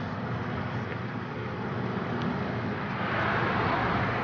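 Steady road-traffic noise with a low engine hum underneath; a passing vehicle swells louder about three seconds in.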